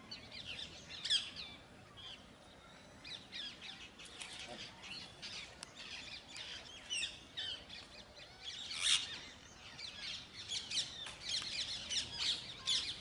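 Small parrots calling: many short, shrill chirps and squawks overlapping, with louder calls about a second in and again near the nine-second mark.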